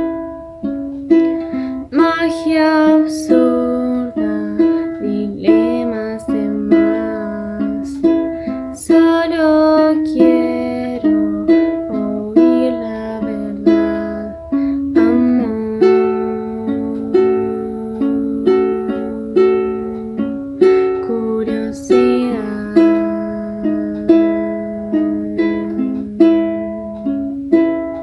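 A woman singing a slow song in Spanish over a fingerpicked acoustic string instrument, which plucks a steady repeating pattern of notes. The singing stops about halfway through, leaving the instrument on its own.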